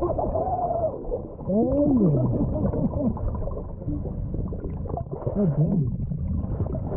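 Underwater recording: a steady low rumble with bubbly crackle from a diver's breathing, and a few muffled hums that glide up and down in pitch. The strongest glide is about two seconds in and a shorter one comes near the end.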